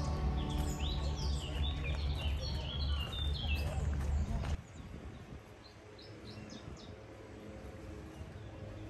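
Many small birds chirping busily, short falling chirps over a low rumble that cuts off abruptly about four and a half seconds in; a few fainter chirps follow.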